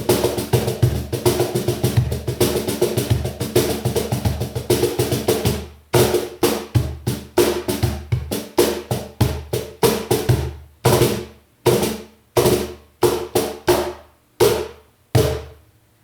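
López de la Higuera cajón with unmuted snare wires, struck by hand: a fast, dense rhythm for the first five seconds or so, then after a short break, single strokes that grow further apart, the last one coming near the end.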